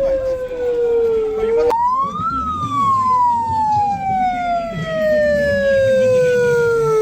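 Ambulance siren wailing. Its pitch climbs quickly about two seconds in, then falls slowly for about five seconds.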